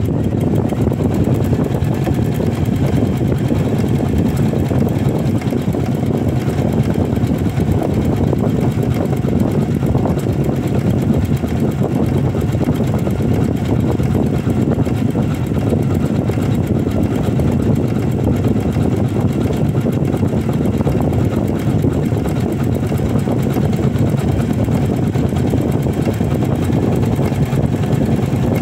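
Embroidery machine stitching steadily: an even, fast mechanical running sound of the needle going up and down, with no pauses.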